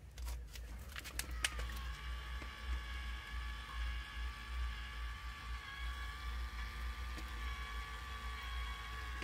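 YoLink electric valve controller's geared motor running with a steady whine as it turns the whole-house ball shut-off valve handle a quarter-turn closed, set off by a leak sensor detecting water. A few clicks come just before the whine starts.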